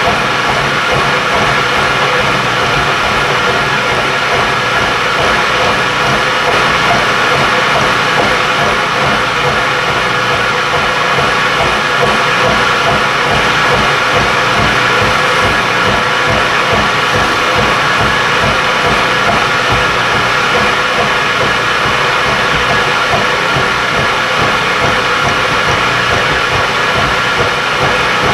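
Milling machine running with an end mill cutting a slot in a metal part as the table feeds: a steady mechanical din with a constant whine over it.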